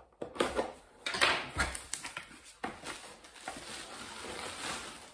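A blade slitting the packing tape on a cardboard box in a few quick scratchy strokes, then the box flaps pulled open and the box handled with a steady cardboard rustle.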